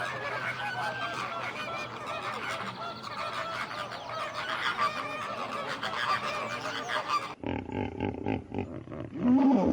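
A flock of geese honking, many calls overlapping. A little over seven seconds in it cuts abruptly to a different, pulsing animal call that stops suddenly.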